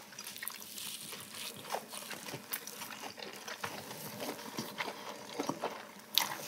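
Quiet eating sounds: soft chewing and mouth noises, with scattered small clicks of metal chopsticks against dishes and a sharper click about six seconds in.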